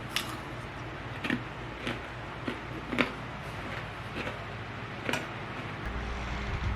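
Eating sounds: scattered short clicks and clinks, about one a second, over a low steady hum that gets louder near the end.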